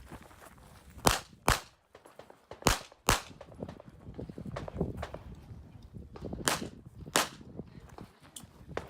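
CZ Shadow 2 9mm pistol fired in quick pairs: two shots about a second in, two more near three seconds, then after a pause with footsteps two more near seven seconds, as targets are engaged on an IPSC stage.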